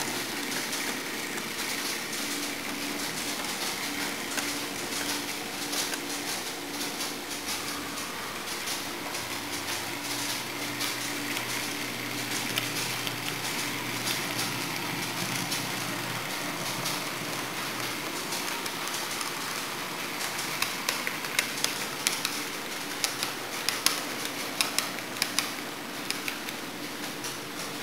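Model electric locomotive, a miniature of the Companhia Paulista 'Baratinha' GE B-B, running with a coach on a model railroad: a steady motor hum with wheel noise on the track. About two-thirds of the way through, a run of sharp clicks sets in.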